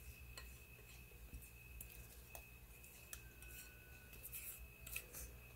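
Faint scraping and a few light ticks of a silicone spatula working dressing out of a bowl.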